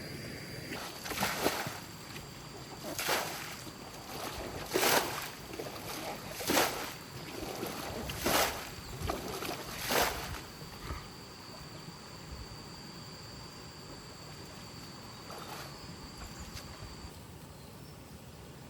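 Six rhythmic swishing, splashing strokes in water, evenly spaced about every second and a half to two seconds, stopping about ten seconds in; a faint high steady tone runs underneath.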